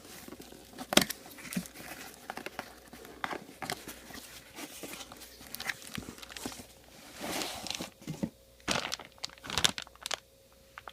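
Packing material crinkling and rustling as it is handled during an unboxing, with irregular sharp clicks and a longer rustle about seven seconds in.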